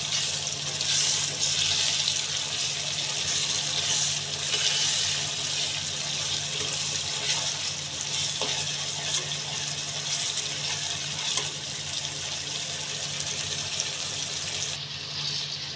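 Chicken keema frying in a nonstick kadai while a spatula stirs it: a steady sizzling hiss with a few faint spatula clicks, and a low steady hum underneath. This is the bhuna stage, the keema being fried until its moisture cooks off.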